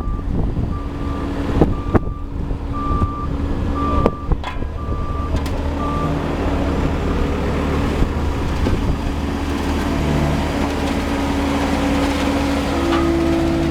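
Heavy diesel machinery at an asphalt-paving job running steadily, with a reversing alarm beeping about once a second that stops about halfway through. A few sharp knocks come in the first half.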